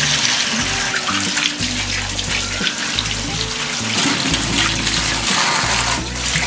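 Kitchen tap water running onto tomatoes in a steel colander and splashing as hands rub them clean, over background music with a steady low bass line.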